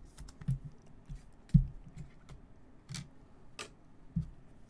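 Rigid plastic card holders being handled and set down on a table: a few soft knocks, the loudest about a second and a half in, and light plastic clicks.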